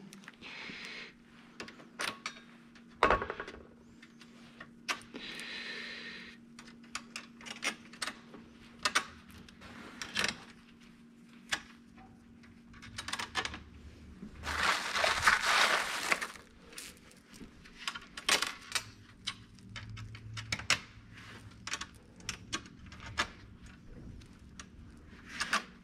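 Scattered metallic clicks, clinks and knocks of aluminium plates, steel gear rack sections and screws being handled and fitted on a steel workbench, with a louder noisy stretch of a second or two about fifteen seconds in. A faint steady hum runs underneath.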